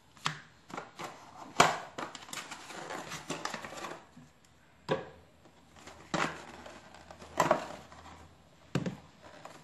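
A small cardboard box and paper insert being handled: irregular taps, clicks and rustling of card and paper as the box flaps are opened and items are taken out and set on a table.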